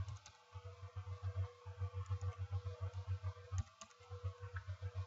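A few computer keyboard keystrokes, short sharp clicks in pairs at about three moments, over a low hum that pulses several times a second.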